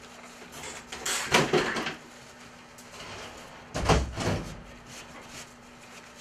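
Two short bursts of rustling and knocking, about a second in and about four seconds in, the second with a low thud: a spinning reel being handled and wiped with a paper towel on a workbench.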